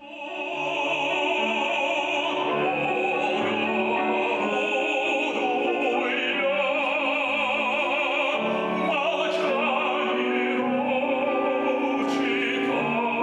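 Operatic classical singing with a wide vibrato, held over sustained instrumental accompaniment.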